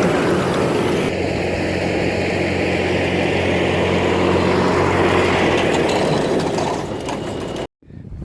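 Tractor engine running steadily and driving a John Deere 435 round baler as it rolls a hay bale, with a steady low hum through most of it. The machine noise fades and then cuts off abruptly near the end.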